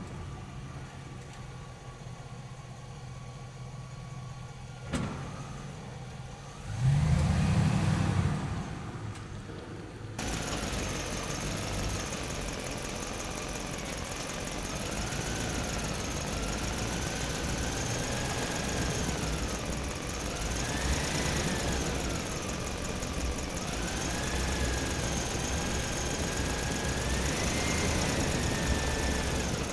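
Small electric motors of radio-controlled construction models whining, the pitch rising and falling again and again as they speed up and slow down. A loud low rumble lasts about two seconds, around seven seconds in.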